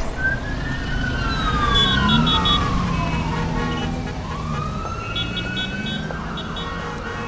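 A siren wailing in one slow fall and rise of pitch, over a low steady background rumble.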